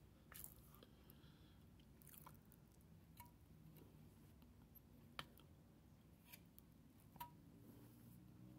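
Faint chewing of a mouthful of dry cornstarch eaten off a plastic spoon, with about six sharp clicks scattered through it, the loudest about five seconds in.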